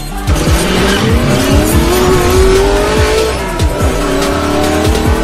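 Music with a heavy electronic beat, overlaid with a car engine revving sound effect. Its pitch climbs steadily for about three seconds, dips, then climbs again.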